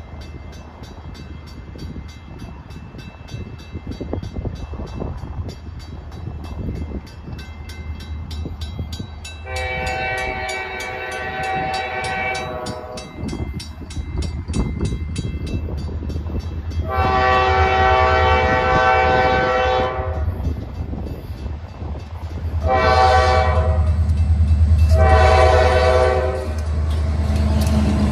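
Quebec Gatineau Railway freight train's diesel locomotives approaching a level crossing, the lead locomotive's air horn sounding the crossing signal: two long blasts, a short one and a long one. The low engine rumble builds and is loudest as the locomotives pass close by near the end.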